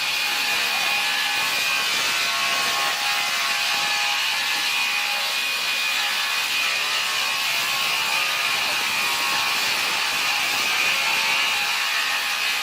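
Sawmill machinery running steadily, a saw cutting through wood with a continuous mechanical whir and rattle.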